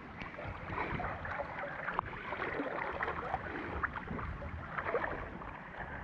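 River water sloshing and splashing around a person wading chest-deep, with small irregular splashes and lapping close to the camera.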